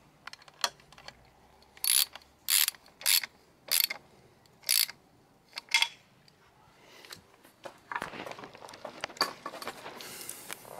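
Hand socket ratchet clicking in about half a dozen short strokes over the first six seconds as it runs in the bolts of an outboard's lower-unit housing. Softer, steadier noise follows in the last few seconds.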